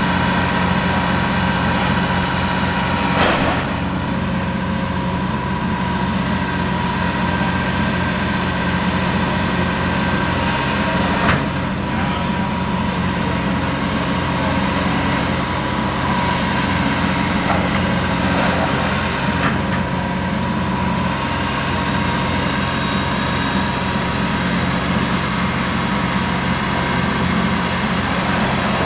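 Diesel engines of Caterpillar hydraulic excavators running steadily during demolition. Sharp cracks of breaking debris come through about three seconds in and again around eleven seconds.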